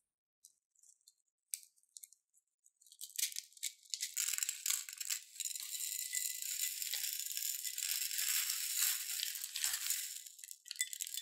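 Small clear beads pouring out of a cut piping bag into a bowl, landing on a heap of beads in a dense, high-pitched rattle. Scattered clicks come first, then a steady pour about three seconds in that stops near the end.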